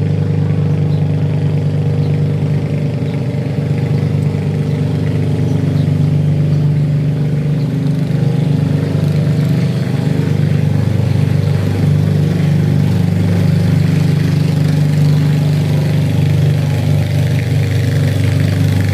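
An engine running steadily at a constant speed, a loud, even low drone that keeps on without change.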